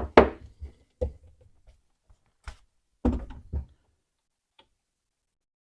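A few sharp metallic knocks and clicks of a tool working the movable jaw's set screw on a Kurt vise as it is backed off a quarter turn. They come in short groups, the last about three and a half seconds in.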